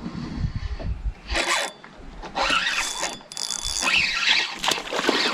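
Fishing reel's drag buzzing in spurts as a hooked bass pulls line off during the fight.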